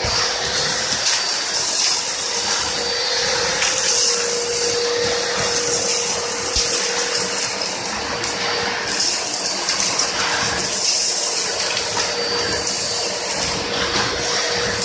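Two-motor 2.2 kW industrial vacuum cleaner running steadily with both motors on: a rushing air noise with a steady whine over it.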